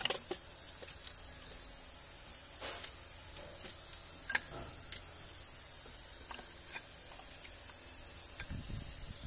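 Light clicks and knocks of a plastic water pump and thermostat housing being handled and pressed into place on an Audi 2.0 TFSI engine, over a steady high-pitched hiss. The sharpest knock comes a little past the middle.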